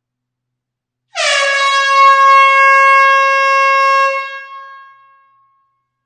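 An air horn gives a single steady blast of about three seconds, starting about a second in, then dies away over about a second in the reverberation of an enclosed hall.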